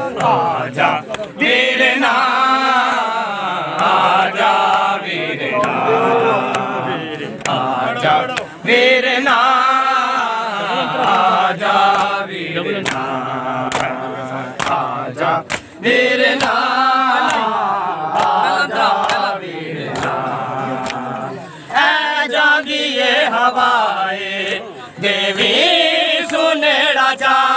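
A group of men chanting a Punjabi noha, a Shia mourning lament, in unison without instruments, in long drawn-out phrases. Now and then there is a sharp slap of hands on chests.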